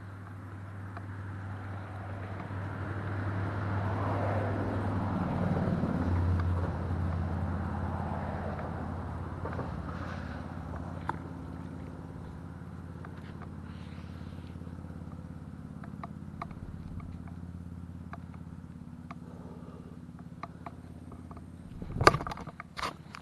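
Highway traffic passing on the overpass above: a vehicle rising and fading away over a steady low drone. Near the end come a few sharp knocks.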